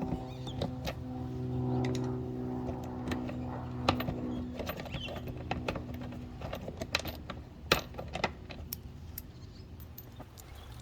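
Small sharp clicks and light rattles of screws, washers and a hand screwdriver being handled as a fender-flare screw is taken out and a longer self-tapping screw put in, over a steady low hum that fades out about six seconds in.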